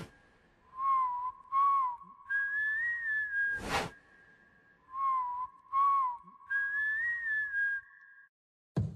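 Background music of whistling: short wavering whistled phrases over a held note, the same phrase looping about every three seconds. A sharp hit sounds right at the start and again a little before four seconds in.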